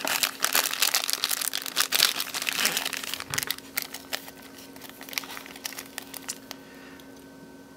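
Clear plastic parts bags crinkling and crackling as they are handled. The crackling is dense for the first few seconds, then thins to scattered crackles and dies away near the end.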